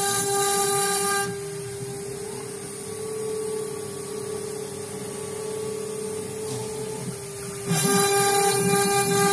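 CNC router spindle running with a steady whine while its bit cuts the board with a loud hiss. About a second in, the cutting noise drops away and only the quieter spindle whine is left; the loud cutting sound comes back near the end.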